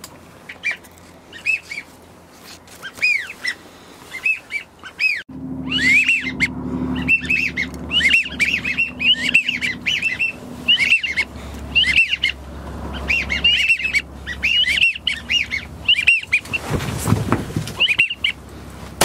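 Geese honking, many short rising-and-falling calls repeated and overlapping, thickening into a steady chorus about five seconds in.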